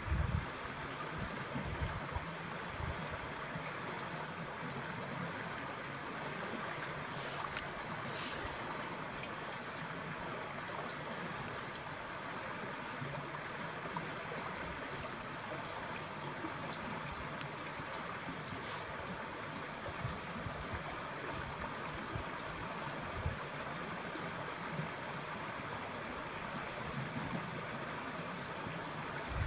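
Shallow stream flowing steadily over a stony bed, an even rushing babble of water.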